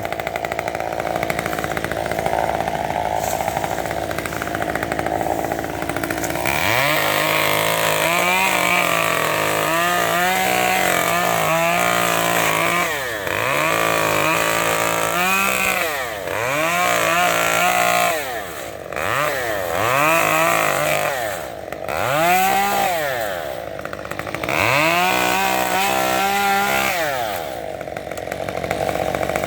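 Chainsaw idling, then from about six seconds in revving up and down again and again, roughly every two seconds, as it cuts dead fronds off the bottom of tall palmettos.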